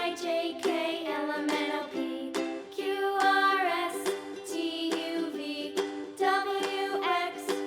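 Cheerful instrumental background music for children, with plucked strings keeping a regular strum under a melody.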